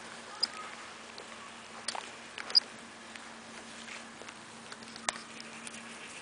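Faint rustling and pattering of corgi puppies moving through lawn grass, with a few soft clicks and two brief high chirps, over a faint steady hum.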